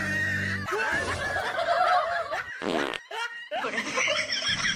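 A person laughing.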